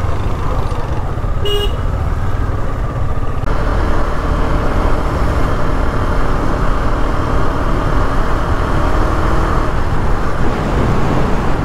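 Motorcycle on the move: steady engine and road noise, with one short vehicle horn toot about a second and a half in.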